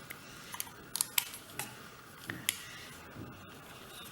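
Irregular small plastic clicks and taps from handling the OneGX1 Pro's detachable controller handles.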